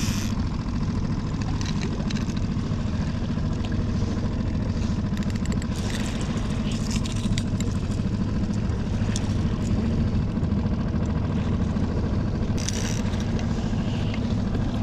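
Small outboard motor running steadily as the skiff moves, with faint clicking from a conventional reel as the trolling line is cranked in.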